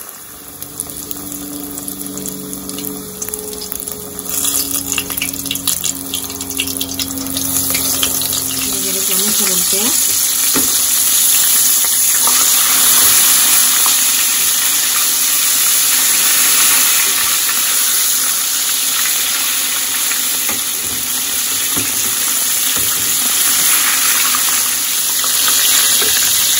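Battered chicken tenders deep-frying in hot oil: a crackling sizzle that swells about ten seconds in into a loud, steady, dense sizzle as the pot fills with pieces.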